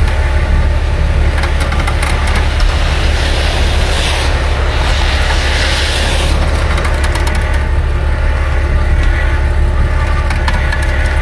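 A vehicle engine running steadily with a deep, even hum, and a louder rushing, crunching noise for a few seconds in the middle.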